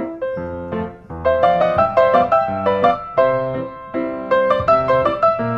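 Background piano music: a gentle melody of struck notes over a steady pulse, growing fuller about a second in.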